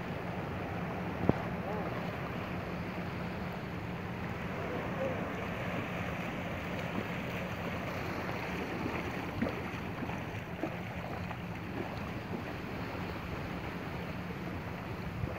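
Wind on the microphone over gentle waves lapping in shallow sea water. Legs wading through the shallows splash now and then, with a sharp click about a second in.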